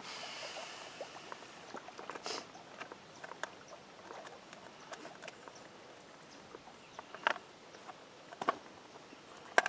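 A folded aluminium pie-plate leech trap being handled and worked open: scattered light clicks and crinkles of the thin metal, with a soft hiss in the first second or so.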